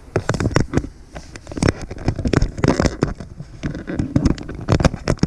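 Close handling noise: an irregular run of knocks, clicks and rustles as tools and parts are picked up and moved around in an engine bay.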